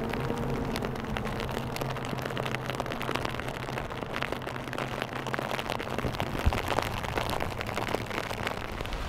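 Dense crackling, fizzing hiss of churning water. A low engine-like hum fades out within the first second or so.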